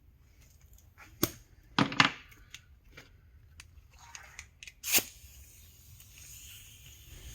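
Metal clinks and clanks of hand tools and bolts against the transmission case: a few sharp knocks with light ticks between them, as a valve-body bolt is taken back out.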